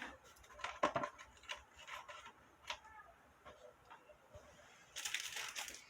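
Small scattered clicks and taps of close-up handling work on a cicada specimen, then about a second of crackly rustling near the end.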